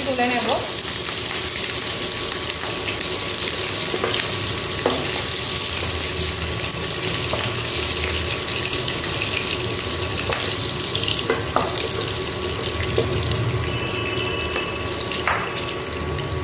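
Prawns frying in hot oil in a kadai, a steady sizzle. A few short scrapes and taps of a spatula against the pan come as the prawns are stirred.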